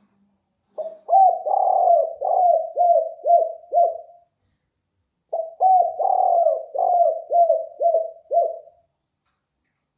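Spotted dove cooing in the 'kuk 4' song type: two phrases, each a short lead note and a longer coo followed by four short, clipped 'kuk' notes. The second phrase begins about five seconds in.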